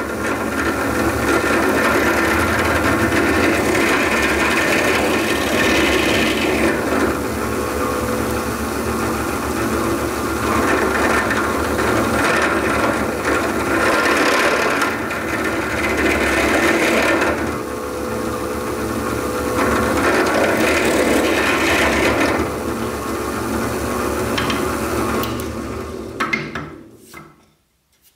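Benchtop drill press running, its bit grinding down through a knife's wooden handle scales and metal handle pins, with the cutting noise swelling louder in several stretches over a steady motor hum. It runs down and stops near the end.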